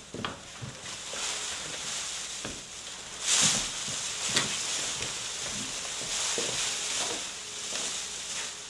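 A steady hiss, strongest in the treble, with a louder surge about three seconds in and a few faint clicks.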